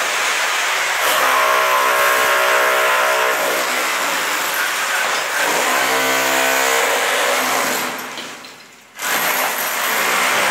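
Electric hammer drills hammering into a concrete ceiling slab, breaking off water-damaged concrete: a loud, steady chattering hammer noise with a motor whine. The noise dies away about eight seconds in, then starts again abruptly a second later.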